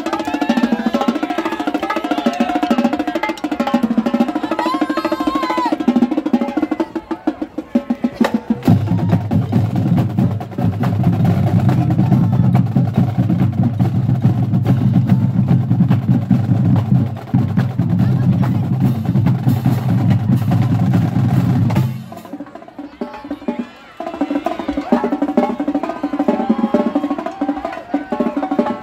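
School marching band playing in the stands: drums and horns, with a long held low tone through the middle under steady drum strokes, a short lull about three quarters through, then the band playing again.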